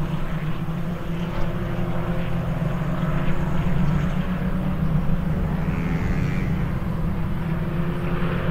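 KTM X-Bow race car engines running on the circuit: a steady, even drone with no break.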